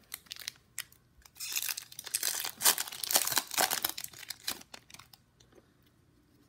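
Shiny wrapper of a Topps baseball card pack being torn open and crinkled by hand. Crackling starts about a second in, is loudest in the middle, then thins out near the end.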